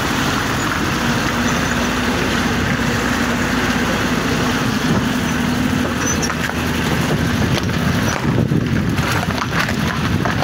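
A motor vehicle's engine running steadily, a constant hum under a rushing noise, with a few clicks about eight seconds in.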